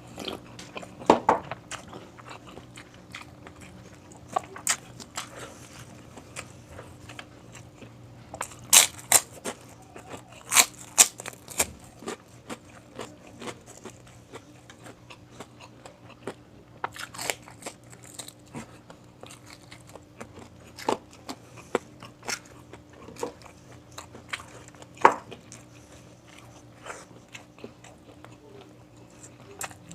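Close-miked eating of crunchy fried food: irregular crisp bites and crunching with chewing in between, the loudest crunches scattered a few seconds apart. A faint steady hum runs underneath.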